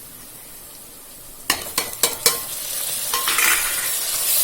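Chopped tomatoes going into hot oil and fried onions in a pressure cooker: a few sharp knocks about a second and a half in, then frying sizzle that grows steadily louder.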